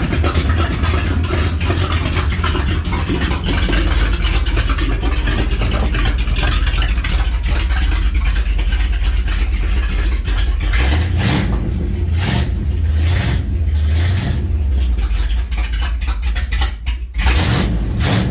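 Dodge Dakota pickup's V8 engine running loud with a deep exhaust rumble. In the second half it is blipped in a string of short, evenly spaced revs.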